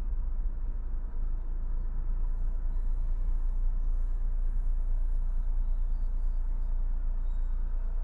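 Steady low rumble inside the cabin of a BMW 220i coupé driving slowly in town traffic, its B48 2.0-litre turbocharged four-cylinder and tyres heard through the body.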